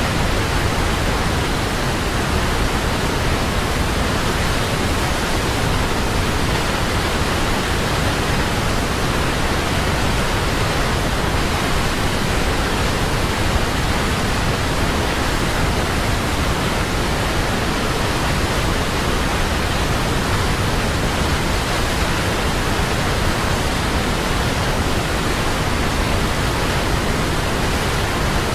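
Large waterfall: falling water making a loud, steady, unchanging rush spread evenly from deep rumble to high hiss.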